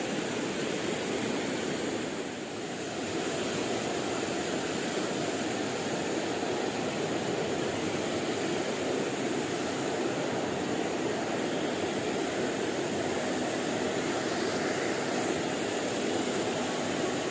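Steady rush of flowing river water, with a faint, thin high-pitched tone running above it.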